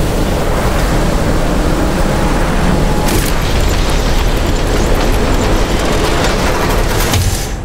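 Sound-design rumble of heavy robotic machinery: a loud, dense low rumble with grinding noise throughout, broken by sharp bursts about three seconds in and a cluster of them near the end.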